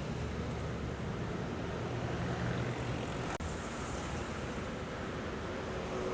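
A steady rumbling noise like a passing vehicle or engine, with a brief dip about three and a half seconds in, stopping suddenly at the end.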